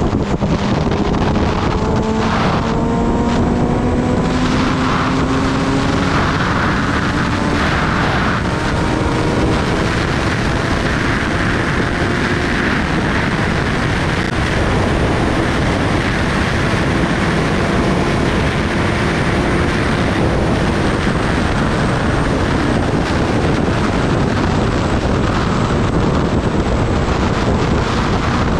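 Kawasaki Ninja ZX-10R's inline-four engine pulling, its note rising slowly over the first few seconds and then holding nearly steady, under heavy wind rushing over the microphone.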